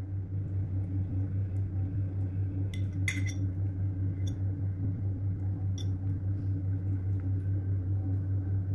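A cat eating hard-boiled egg off a plate, with a few faint clicks of chewing and of the plate about three seconds in and again near four and six seconds, over a steady low hum.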